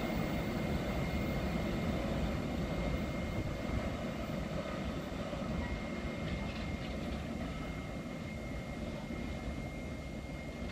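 Container freight train rolling through on the rails, a steady rumble that slowly gets quieter.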